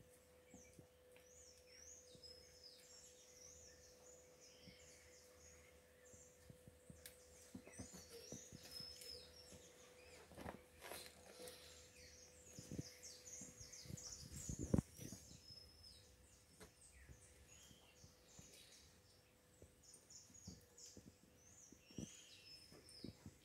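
Faint background birdsong, many short chirps, over a steady low hum, with scattered soft thumps and scuffs from kittens play-fighting on a rug, the loudest cluster of thumps a little past the middle.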